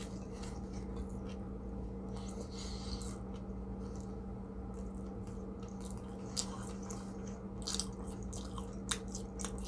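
A person chewing a mouthful of burger on a hard roll, with scattered small wet mouth clicks and smacks. A steady low hum runs underneath.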